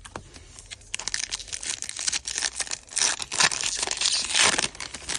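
Foil wrapper of a Topps baseball card pack being torn open and crinkled, a dense crackling that starts about a second in and is loudest toward the end.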